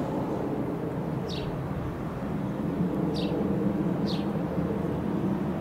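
Dassault Falcon 20's twin General Electric CF700 turbofans running as the jet flies overhead, a steady low rumble heard from the ground. Three short high chirps fall in pitch over it.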